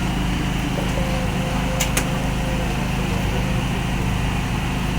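A steady low mechanical hum, with two quick sharp clicks about two seconds in.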